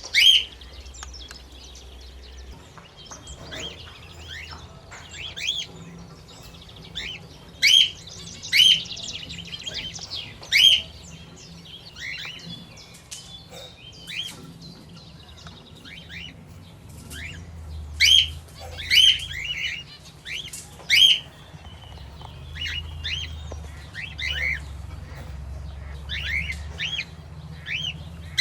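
Pet budgerigars and cockatiels chirping: short, sharp calls over and over at an uneven pace, some much louder than the rest, over a faint low hum.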